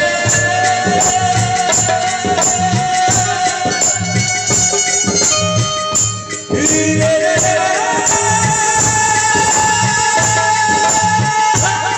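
Loud live Bhojpuri stage music played through PA speakers: a held keyboard melody over a steady beat, with a short break about halfway through.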